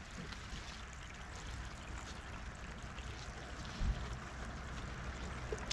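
Small waves lapping at a muddy lakeshore, a steady watery wash, with a low rumble of wind on the microphone and a single dull thump about four seconds in.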